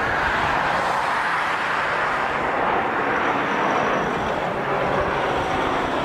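Jet airliner engines running: a steady rushing noise with a faint high whine about halfway through.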